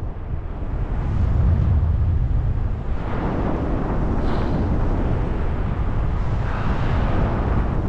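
Wind rushing over the microphone of a paraglider pilot's camera in flight: a steady, loud, low rumble of airflow.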